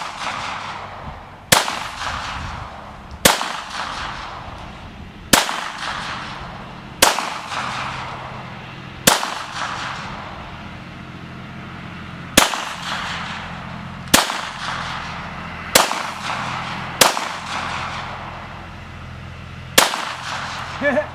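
Ten single shots from a Glock 19 9mm pistol, fired slowly about one and a half to three seconds apart, each sharp crack trailing off in a long echo.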